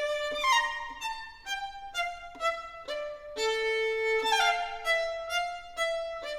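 Solo violin playing a slow melody, one note at a time, with a long held note about halfway through.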